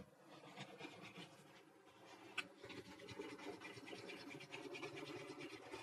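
Steel chisel being rubbed by hand on a wet Shapton waterstone: faint, uneven scraping, with one sharp click about two and a half seconds in.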